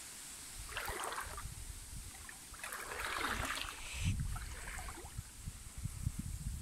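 Shallow stream water splashing and sloshing in three short bursts, over an irregular low rumble on the microphone.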